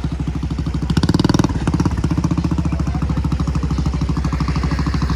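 Mud bike engine running at low speed with an even, pulsing exhaust beat, revving up briefly about a second in.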